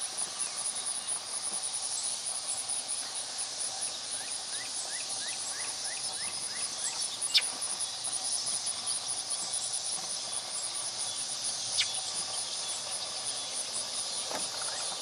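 A steady, high-pitched chorus of field insects such as crickets. A quick run of short rising chirps comes about a third of the way in, and two sharp clicks sound, one about halfway and one about three-quarters of the way through.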